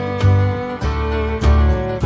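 Background music: strummed acoustic guitar over a bass line, with a steady beat.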